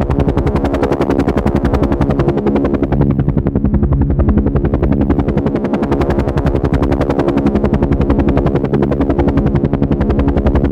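Helicopter rotor and engine running steadily, a fast even chop of the blades over a continuous drone.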